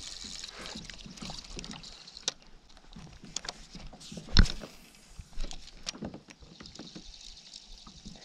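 Irregular knocks and water splashes from a small fishing boat on the water, the loudest knock about four seconds in, over a steady high hiss.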